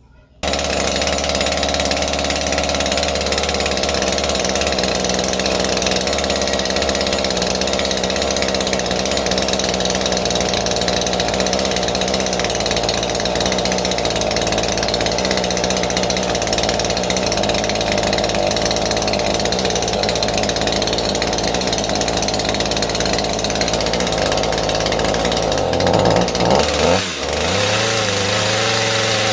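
Husqvarna two-stroke chainsaw engine running steadily. Near the end its engine speed changes, surging briefly and dipping, then settling into a different steady note.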